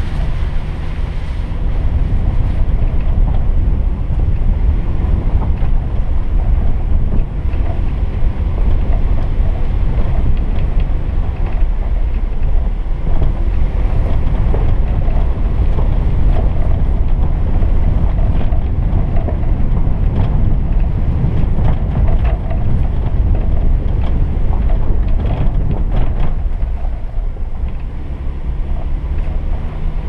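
Jeep driving slowly on a dirt and gravel trail, heard as a steady low rumble of wind buffeting the microphone over the engine and tyres on gravel. There are a few short knocks and rattles in the second half.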